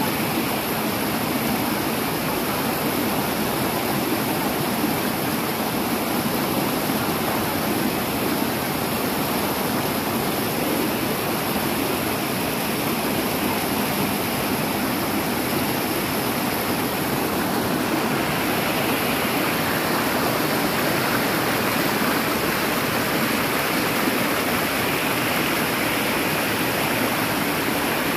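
Mountain stream rushing over boulders in small cascades: a steady rush of water, a little brighter and louder in the last third.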